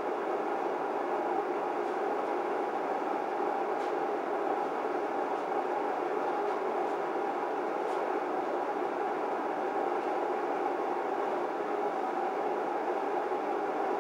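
A steady, even rushing noise with a faint hum in it, and a few faint ticks.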